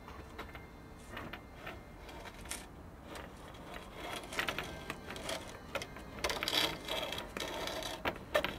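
Faint, irregular mechanical clicking and clattering that grows busier and louder about halfway through.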